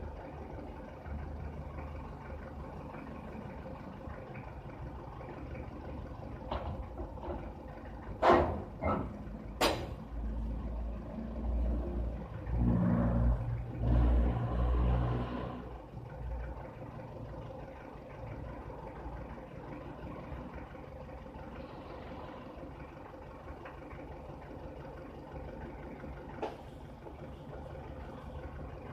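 A motor runs steadily with a low hum. Two sharp metallic knocks come about eight and ten seconds in, and a louder low rumble swells for a few seconds in the middle.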